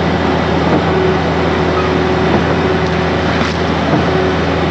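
Truck-mounted concrete pump's diesel engine running steadily under load, a loud, even drone with a constant low hum.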